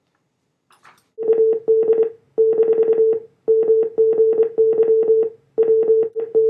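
Morse code played as a buzzy tone near 500 Hz, keyed on and off in short and long elements starting about a second in, sending the Titanic's distress signal.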